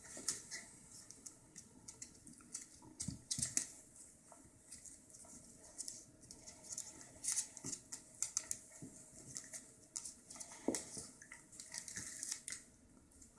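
Toy poodle and cat wrestling: faint, irregular scuffling and rustling with scattered scratchy clicks and a couple of dull thumps.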